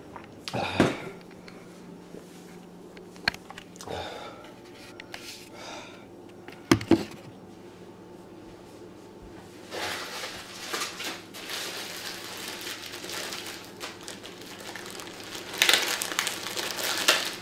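Kitchen handling sounds: a few sharp knocks of items being set down on a counter, then stretches of rustling and crinkling of packaging being handled, over a faint steady low hum.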